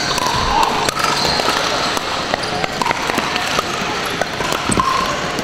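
Pickleball paddles striking plastic balls on several courts of a hardwood-floored sports hall: scattered sharp pops and clicks over a steady hubbub, with a few short squeaks.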